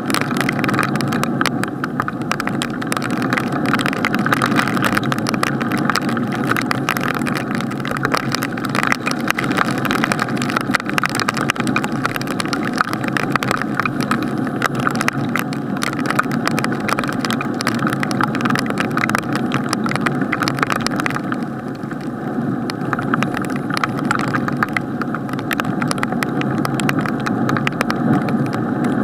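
Rain pattering on an SJCAM SJ5000 Plus action camera's waterproof housing, a dense, muffled run of tiny taps over a steady rush of rain. The crisp taps thin out about two-thirds through.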